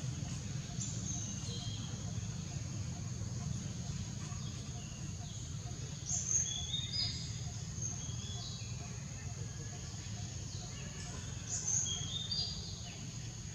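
A bird singing short phrases of whistled notes that step down in pitch, three times, over a steady high insect buzz and a low rumble.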